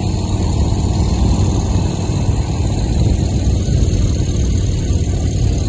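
1929 Indian 101 Scout's V-twin flathead engine running steadily under way, heard over steady wind noise on the microphone.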